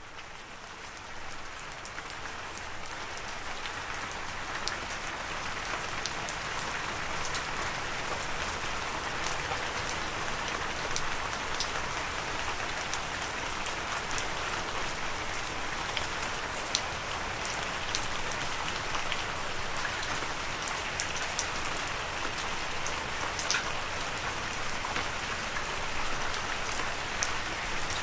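Steady rainfall, a continuous hiss with many scattered sharp drop ticks, fading in over the first few seconds and then holding steady.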